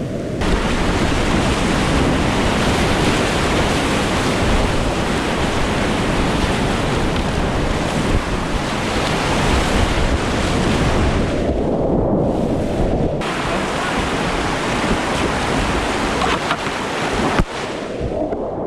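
Whitewater of a mountain river rushing steadily, with wind buffeting the microphone. Twice the sound briefly goes dull, once a little past the middle and once near the end.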